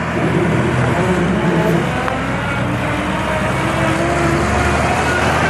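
JP 9255 combine harvester running steadily, its engine and machinery making a continuous loud hum.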